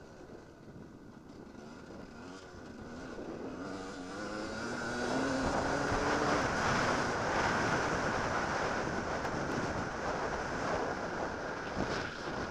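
Enduro motorcycle engine accelerating, its pitch rising over several seconds. From about halfway in, loud wind rushing over the microphone swamps the engine.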